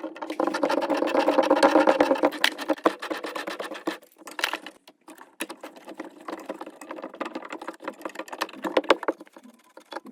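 Battery-powered hydraulic press tool crimping a Viega press fitting onto copper pipe: a whirring motor with a rapid rattle, loudest in the first two seconds. A second press cycle runs from about five to nine seconds in.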